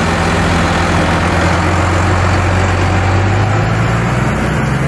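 Pickup truck engine running steadily as the truck pulls away towing an empty trailer, a low hum whose pitch rises slightly a little past halfway.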